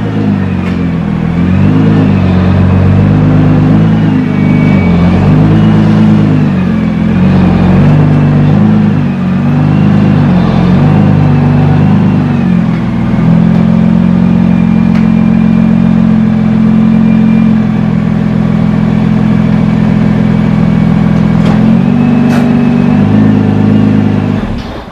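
Nissan GT-R's twin-turbo V6 running shortly after a cold start, its pitch rising and falling with repeated blips of the throttle for about the first half. It then settles into a steady run and cuts off abruptly near the end.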